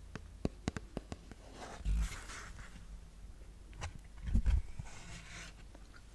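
Thick cardboard pages of a small board book handled and turned close to a microphone: light clicks and taps, then soft rustling swishes with dull low thumps about two seconds in and again about four seconds in as a page is turned.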